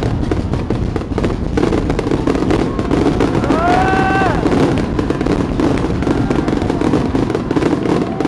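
A continuous barrage of fireworks crackling and bursting. About four seconds in, a spectator gives one drawn-out cry of awe.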